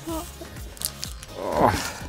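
A young boy's short, strained effort sound, a sliding, growly grunt, as he struggles to tear open a toy's tough wrapping, with a few light handling clicks.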